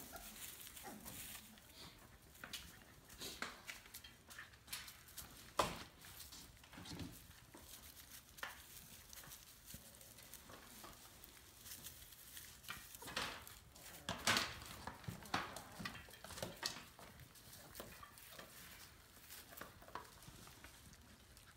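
Four-week-old puppies moving about in straw bedding around a food bowl: scattered rustling with small clinks and knocks, the loudest about five and a half and fourteen seconds in.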